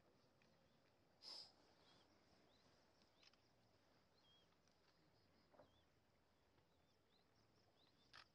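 Near silence: faint outdoor ambience with a few soft, high chirps and a handful of short clicks, the sharpest about a second in.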